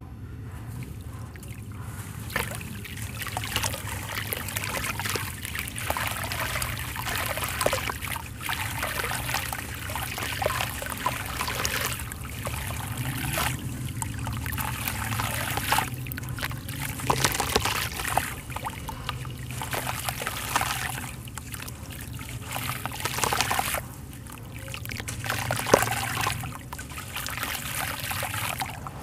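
A water-soaked sand-cement chunk being crumbled by hand over a tub of water: gritty crunching and crackling of the breaking sand, with wet sand and water trickling and dribbling from the fingers into the water, in recurring louder surges.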